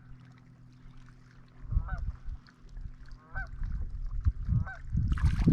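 Faint geese honking, a short call every second or so, over a steady low hum, with low bumps and a louder rushing noise near the end.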